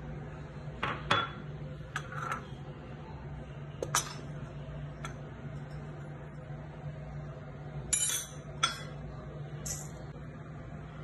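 Metal utensils clinking and tapping against a stainless steel mixing bowl and a ceramic dish, a scatter of separate clinks with a short scrape about 8 seconds in, over a steady low hum.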